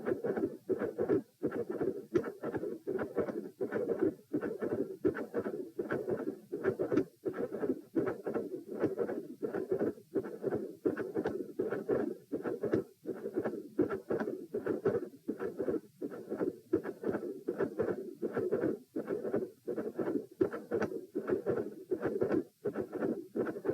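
Heart sounds: a steady rhythm of beats with split first and second heart sounds, and a continuous murmur filling the gaps between the beats.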